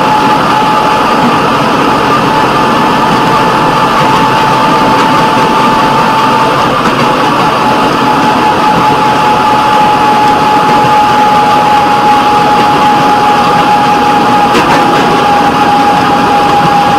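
Fire-patrol rail vehicle running along the track: steady engine and running noise with a constant high whine that drops out briefly about six seconds in.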